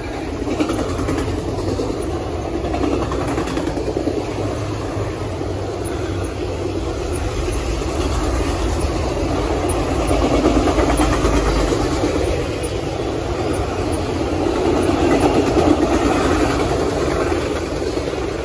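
Autorack freight cars rolling past: a steady rumble of steel wheels on the rails, rising and falling in loudness as the cars go by.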